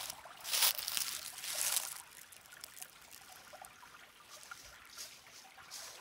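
Footsteps crunching through dry fallen leaves, a few loud crackles in the first two seconds, then a faint steady trickle of a shallow creek running low.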